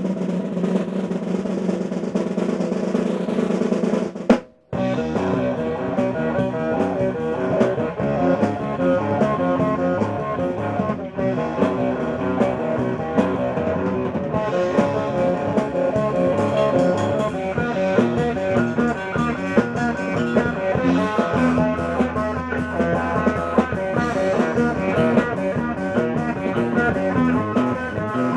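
Rock drum kit solo: rolls around the snare and toms. A held note rings for the first four seconds or so, ends on a sharp hit and a brief gap, and then rapid drumming runs on.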